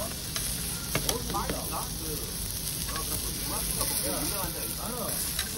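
Thick slices of pork belly sizzling steadily on a slotted grill plate over charcoal, with a few sharp clicks of metal tongs against the plate about a second in and again near the end.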